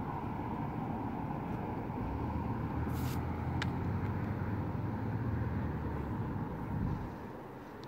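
A motor vehicle's engine rumbling low and steady, fading out near the end. A short hiss and a sharp click come about three seconds in.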